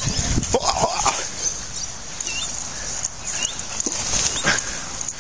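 Staffordshire bull terrier making short vocal noises as it plays with a stick, most of them about half a second to a second in.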